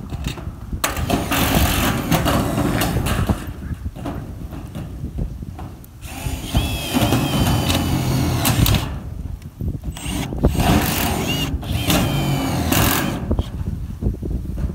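Milwaukee M18 cordless power tools driving screws into corrugated metal roofing sheets. They run in three bursts of a few seconds each, with short pauses between screws.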